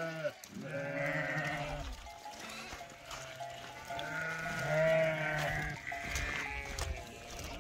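Sheep bleating: several long, overlapping calls with shorter ones between, the loudest about five seconds in.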